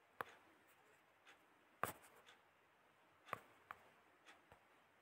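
Near silence broken by a handful of faint, short, irregularly spaced clicks, the loudest about two seconds in.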